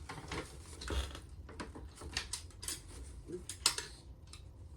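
Irregular plastic clicks and clatter of a transforming Optimus Prime action figure's jointed limbs and parts being twisted and snapped into place, with one sharper click a little over halfway through.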